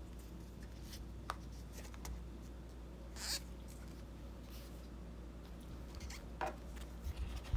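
Faint unboxing handling sounds: a few soft clicks and a brief rustle of packaging, over a low steady hum.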